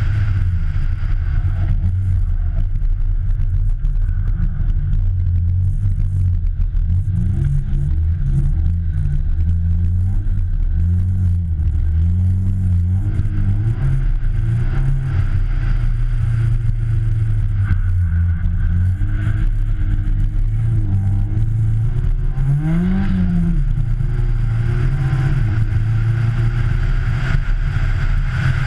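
Citroën Saxo rally car's engine running hard, its pitch rising and falling again and again as the car accelerates, lifts off and changes gear, with one quick rev about three quarters of the way through. A steady low rumble lies underneath, heard from a camera mounted outside the car.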